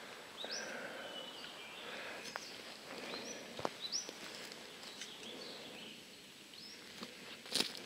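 A bird calling in short rising notes, repeated about every second, over faint forest background. There are a few light crunches of footsteps in undergrowth and a sharper snap near the end.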